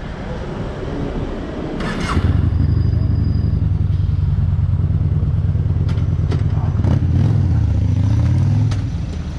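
Motorcycle V-twin engine running with a steady, low, loud note that comes in abruptly about two seconds in, shifts in pitch near the end and then drops away.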